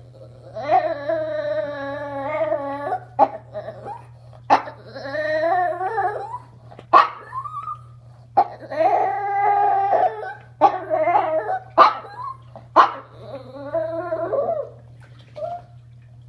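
Chihuahua "talking": a series of about five drawn-out, howl-like calls that rise and fall in pitch, with a few short sharp clicks between them.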